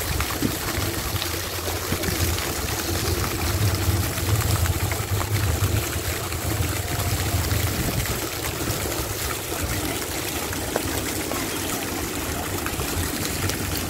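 Small fountain jets splashing steadily into a shallow pool, with a low rumble swelling for a few seconds in the middle.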